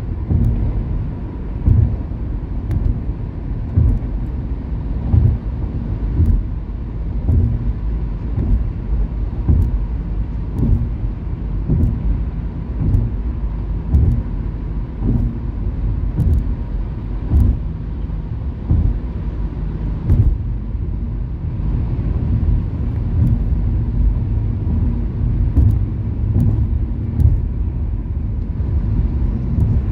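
Car on a highway heard from inside: a steady low road and engine rumble, with short low bumps about once a second.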